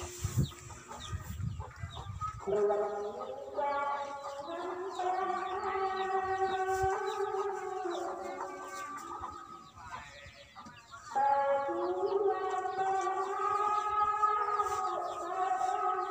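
Chickens clucking and chirping. Under them run long held pitched tones that change pitch in steps and break off twice.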